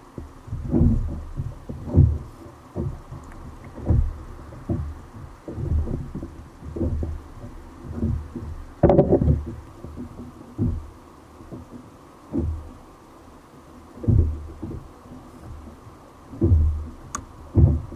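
Irregular low thumps and sloshes about once a second, the biggest about nine seconds in: water knocking against a kayak's hull.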